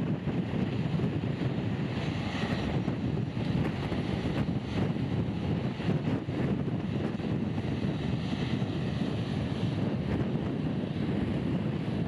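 Strong typhoon wind buffeting the microphone: a steady, rumbling noise.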